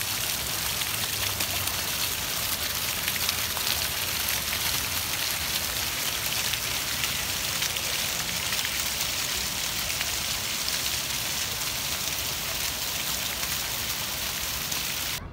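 Ground-level plaza fountain jets spouting and splashing onto wet paving stones: a steady, even hiss of falling water with fine patter, cutting off suddenly near the end.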